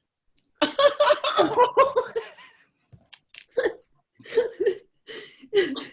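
Laughter in short, broken bursts: a longer run of laughing starting about half a second in, then several brief giggles.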